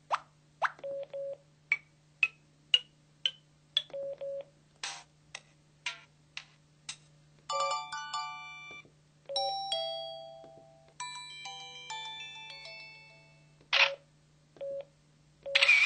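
LT6000 mobile phone's built-in sound effects played one after another: short clicks and blips, a run of five beeps stepping up in pitch, then several brief chiming jingles. Short low key beeps come between the samples, over a faint steady hum.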